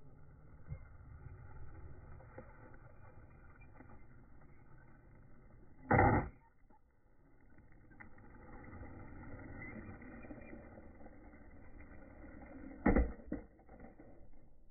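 Slowed-down skateboard sounds on concrete: a low rumble of wheels rolling, with two loud, deep knocks about seven seconds apart, the tail popping for a kickflip and the board landing. A smaller knock follows the second one.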